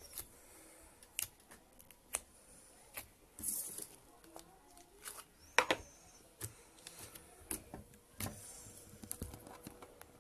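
Homemade glitter slime with beads being squeezed and stretched by hand, giving off irregular sticky clicks and pops, with a short crackle about three and a half seconds in.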